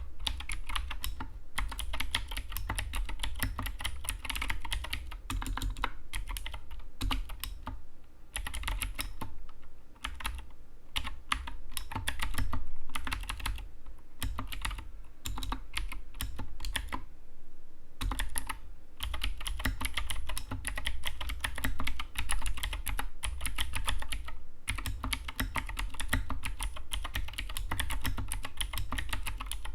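Continuous fast typing on an Anne Pro 2 mechanical keyboard, a dense run of key clicks and clacks broken by a few short pauses.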